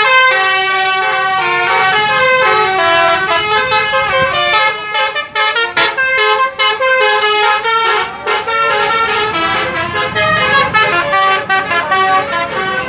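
Bus telolet horn, a multi-tone musical air horn, playing a fast tune of stepped notes, with short choppy notes through the middle.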